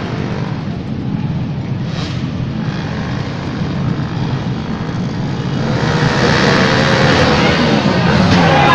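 Racing motorcycle engines running at high revs. They grow louder from about six seconds in, with the pitch gliding up and down.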